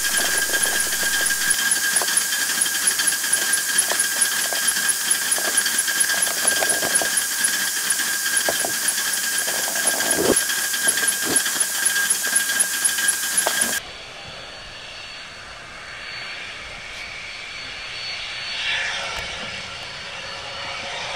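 Home-built 3/4-inch scale Heisler live steam locomotive running on compressed air: a loud steady hiss of exhausting air with a steady whine, a fast regular ticking and a few irregular knocks. It is still running somewhat rough, which the builder thinks the axle-driven feed water pump, the rod adjustments or the valve eccentric timing may need adjusting to cure. About 14 seconds in it cuts off suddenly to a much quieter steady hiss.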